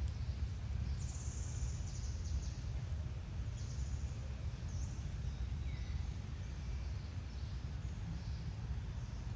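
Outdoor ambience: a steady low rumble with scattered short, high-pitched bird chirps, most of them in the first two-thirds, one sliding downward.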